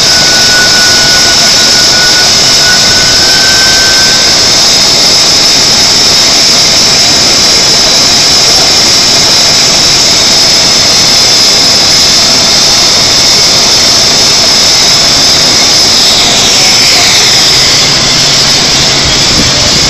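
Loud, steady hissing roar of sugar-refinery machinery. A thin whistle runs through the first few seconds, and a whine slides down in pitch about sixteen seconds in.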